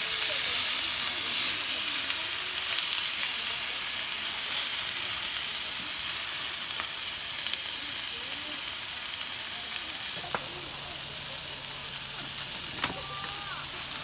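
Food frying in a hot pan, a steady sizzle. A low steady hum joins about ten seconds in, with a couple of sharp clicks.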